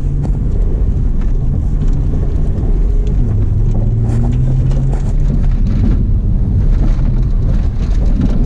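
Car engine running under way as it is driven across a dirt paddock, its low drone rising and falling with the throttle, with wind rumble on the microphone.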